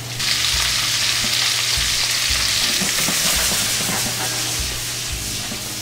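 Fresh asparagus sautéing in a hot skillet: a loud, even sizzle that starts suddenly and slowly eases off.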